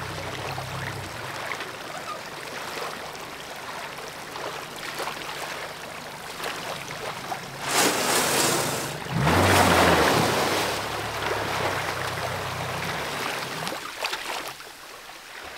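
Small boat's outboard motor running low under a steady rush of water and wind. A louder wash of water rises about eight seconds in and eases off a few seconds later.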